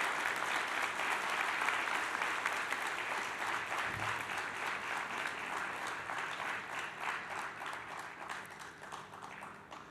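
Conference audience applauding, a dense clapping that gradually thins and fades out over the last few seconds, in response to the announcement that Oman will host the next Indian Ocean Conference.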